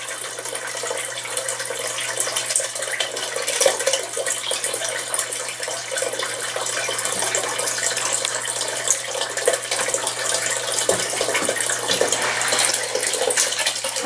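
Water from a small aquarium pump running steadily, trickling and splashing down through a clay-pebble grow bed and draining into the small tank below, over a steady low hum from the submerged pump.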